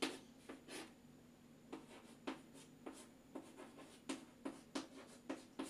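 Chalk writing on a chalkboard: a quick, irregular run of short taps and scratches as the letters are stroked out, with a brief pause about a second in.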